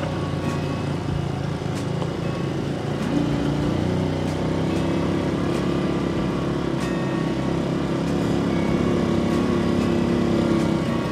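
Small motorbike engine running at a steady cruise while riding along a road, its note lifting a little about three seconds in.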